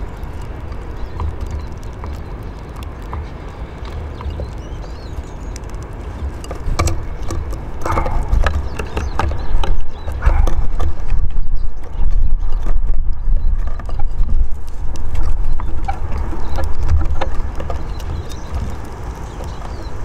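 Wind buffeting the microphone in uneven gusts, loudest through the middle, over scattered sharp taps and clicks of small birds landing and pecking on a wooden bird table.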